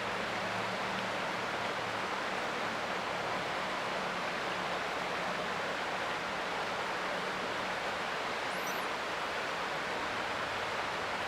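Creek water flowing, a steady even rushing with a faint steady low hum underneath.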